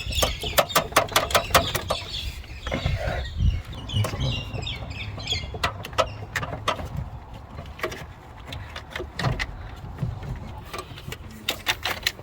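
Hand tools clicking and knocking against metal on a car engine, in quick runs at first and then scattered, with birds chirping in the background.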